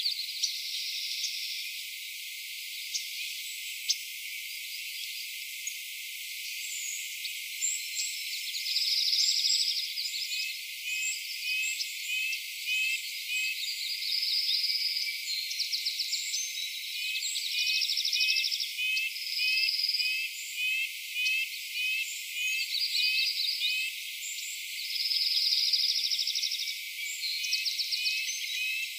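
Outdoor morning ambience of small calling animals: high buzzy trills a second or two long repeating every few seconds, with runs of short high chirps at about two a second.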